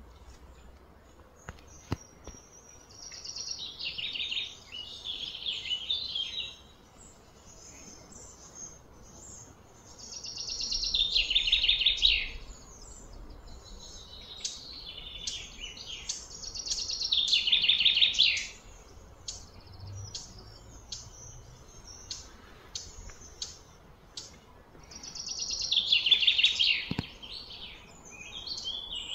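Repeated high-pitched animal calls, wild birds or cicadas. There are four buzzy, rapidly pulsing phrases of two to three seconds each, about seven seconds apart. Each swells and then stops.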